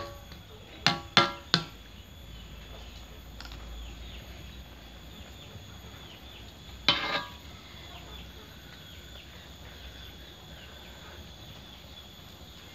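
Metal spatula and ladle knocking against a metal wok of coconut-milk vegetable stew: three quick ringing clinks about a second in, and one more, the loudest, near seven seconds.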